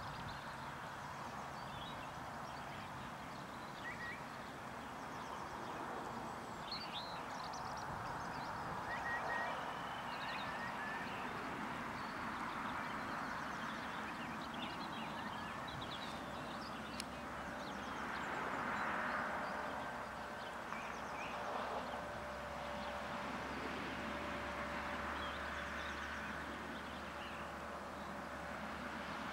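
Small outboard motor on a boat running steadily in the distance, with birds chirping.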